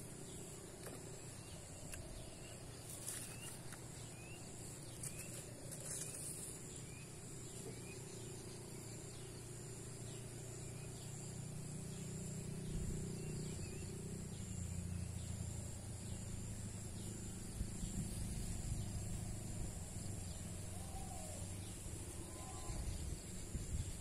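Outdoor riverside ambience: a steady, high-pitched trilling of insects, with a few short chirps early on and a low rumble that swells about halfway through.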